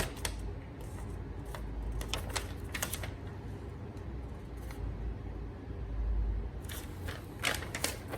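Packaging and paper inserts being handled: scattered light clicks and rustles, with a low rumble of hands near the microphone.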